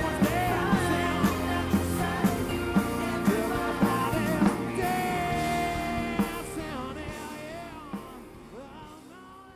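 Background rock-style music with a sung vocal and a steady beat of about two strikes a second, fading out over the last few seconds.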